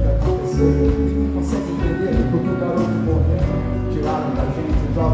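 Live band music at a concert with a man singing into the microphone over strong bass notes.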